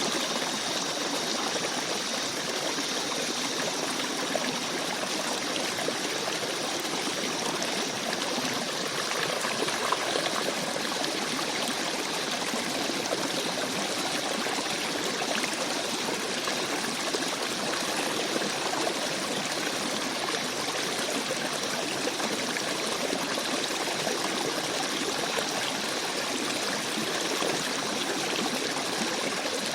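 Shallow forest stream babbling and flowing steadily over rocks, with small gurgles and splashes.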